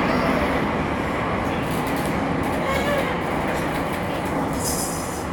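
Metro train running through a tunnel, heard from inside the car: a steady rumble of wheels and running gear, with a brief high hiss near the end.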